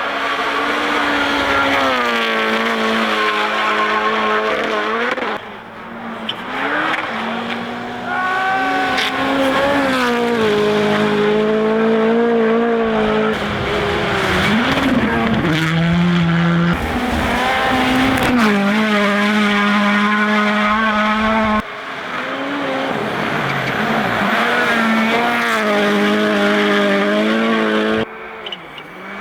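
Rally cars driven flat out on snowy gravel stages, their engines revving hard, rising and dropping through gear changes as they pass, in several short takes joined by abrupt cuts.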